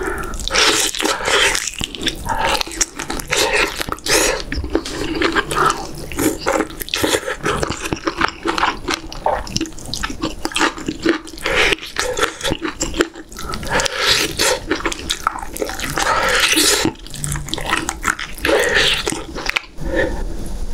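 Close-miked wet chewing, smacking and squelching mouth sounds as braised beef short rib meat is bitten and gnawed off the bone, a dense, irregular run of clicks and squishes.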